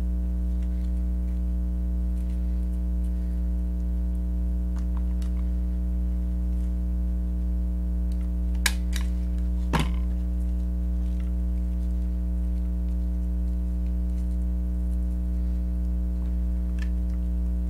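Steady low electrical hum, with a desk stapler pressed through layered ribbon and foam giving two sharp clicks about a second apart near the middle, and a few faint handling taps.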